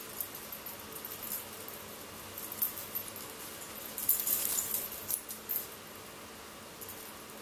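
A shirt's fabric rustling as it is handled and unfolded, with small clinks from metal bangle bracelets on the wrist. The rustling is loudest from about four to five and a half seconds in.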